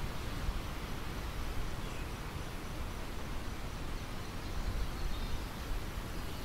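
Wind blowing steadily through a ripe wheat field, rustling the stalks, with low, uneven wind buffeting on the microphone.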